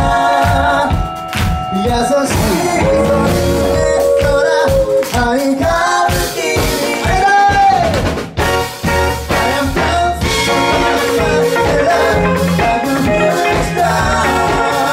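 A live band playing a song: several singers together over electric guitar, drums and trumpet, with a steady beat.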